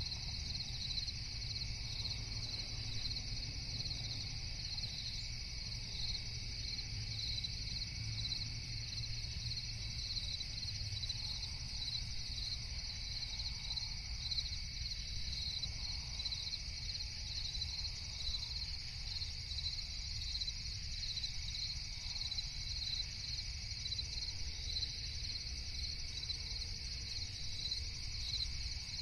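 Crickets chirping in a steady, even rhythm over a low, steady rumble, with a second, fainter, steadier insect trill beneath them.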